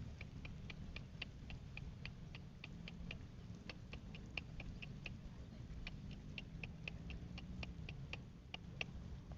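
A small animal in the rice paddy chirping steadily: short high chirps about four a second, with a couple of brief pauses, over a low steady rumble.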